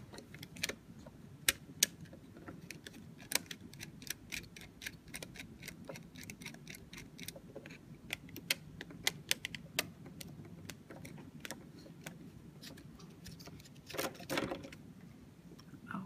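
Screwdriver clicking and scraping on the terminal screws of a plastic wall switch as its wires are loosened: faint, irregular small clicks and taps, with a brief rustle of handling near the end.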